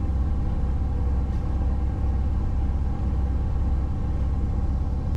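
Tour boat's engine running with a steady low rumble.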